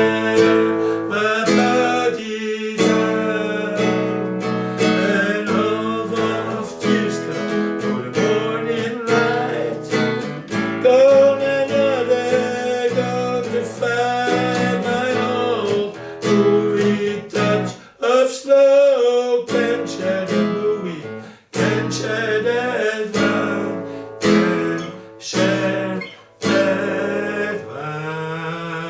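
Music: acoustic guitar strummed and picked, with a few short breaks.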